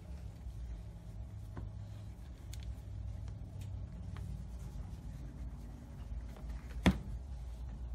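A hand stroking a cat's fur, soft rubbing sounds over a steady low rumble, with faint ticks and one sharp click near the end.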